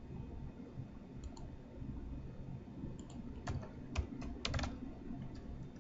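Typing on a computer keyboard: a couple of key clicks about a second in, then a quicker run of keystrokes between about three and five seconds in.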